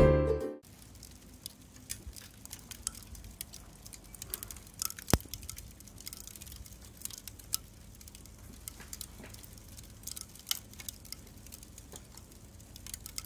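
Lumps of burning charcoal in a grill crackling: faint, irregular small ticks and pops, with a sharper pop about five seconds in.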